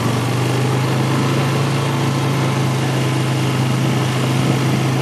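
ATV engine running at a steady speed under the rider.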